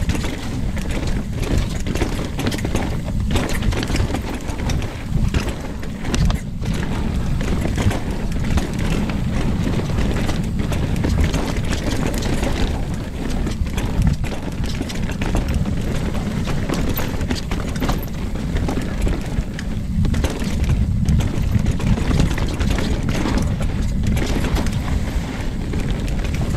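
Mountain bike riding fast down a rough dirt trail: wind rushing over a chest-mounted camera, tyres on the dirt, and the bike knocking and rattling over bumps and roots.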